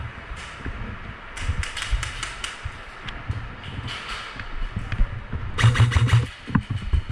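Airsoft guns firing bursts of rapid shots: several strings of quick clicks, the loudest burst a little past halfway through.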